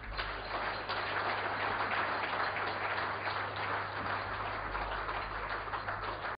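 Audience applauding, a dense, steady clapping that sets in right as the lecture ends.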